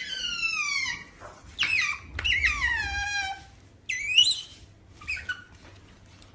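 An animal's high-pitched squealing calls: two long calls that slide down in pitch, with shorter squeaks between them and a quick rise-and-fall call about four seconds in.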